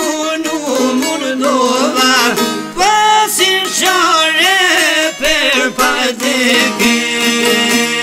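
Albanian folk rhapsody with a wavering, richly ornamented melody line over plucked long-necked lutes. About two-thirds of the way through, the melody gives way to a steady, sustained instrumental passage.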